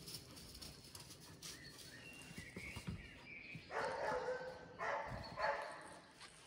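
Dog barking: one longer run of barking a little past the middle, then two short barks.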